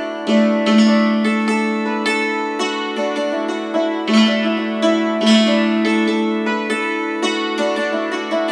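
Hammered dulcimer playing a tune: struck metal strings ring on and overlap as new notes come in several times a second.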